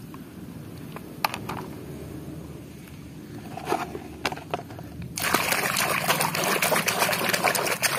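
A muddy plastic toy is handled with a few light clicks and scrapes, then water is poured over it. From about five seconds in there is loud splashing as it is rinsed clean of mud.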